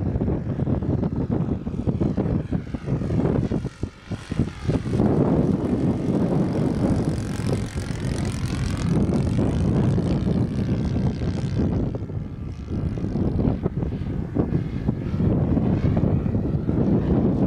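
Propeller-driven radio-controlled model airplane flying past, its engine note sweeping as it passes, loudest in the middle, with heavy wind buffeting the microphone.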